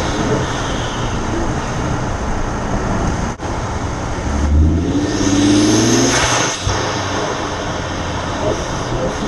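Ford 2.7 EcoBoost twin-turbo V6 breathing through an Injen cold air intake. It runs steadily, then from about four and a half seconds in it accelerates: the engine note rises and the turbo spool whistle builds high. The sound cuts off sharply about two seconds later as the throttle closes, then the engine settles back to steady running.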